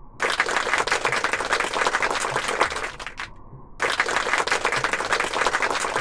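Applause, dense clapping in two bursts of about three seconds each that begin and end abruptly, with a short quiet gap between them.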